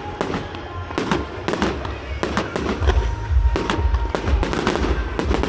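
Aerial fireworks bursting in quick succession: sharp bangs and crackles, several a second, with a deeper low rumble joining about halfway through.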